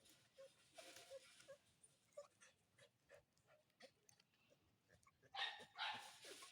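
Aspin dog whimpering faintly with breathy panting, during a mating tie. The breaths come about a second in and again, louder, near the end.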